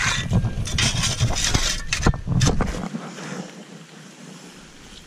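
Metal shovel digging into wet, gravelly mud: a run of irregular scrapes and crunches, with wind rumbling on the microphone. About three seconds in this gives way to a quieter steady hiss.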